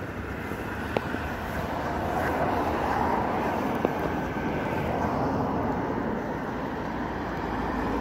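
Steady noise of road traffic going by, swelling a little midway, with two faint clicks.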